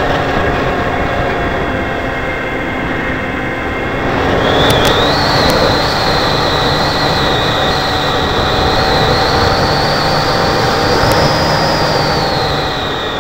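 Wind rushing over a camera mounted on the nose of a foam RC plane in flight, with the plane's motor giving a high steady whine. The whine climbs in pitch about four seconds in and drops slightly near the end.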